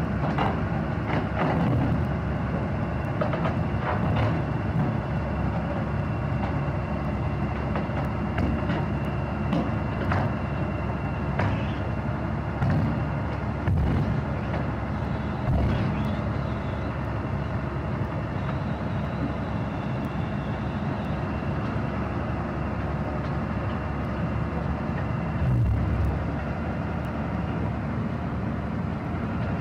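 SANY SR150C rotary drilling rig's diesel engine running steadily while it crawls on its tracks along a steel trailer deck, with irregular clanks and knocks from the track plates.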